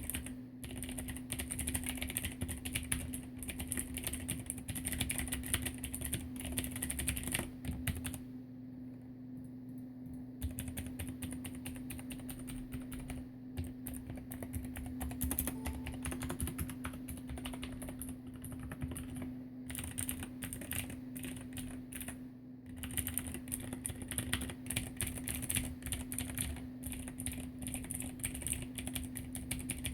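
Continuous typing on a mechanical keyboard with clicky Cherry MX Blue switches on light springs sold as 35 g, the case lined with sound-absorbing foam. The keystrokes ease off for about two seconds some eight seconds in, then carry on.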